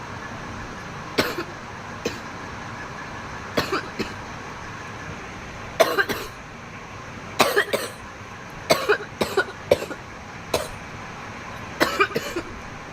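A young woman coughing in repeated fits, several dry hacks at a time every second or two, from inhaling cannabis smoke.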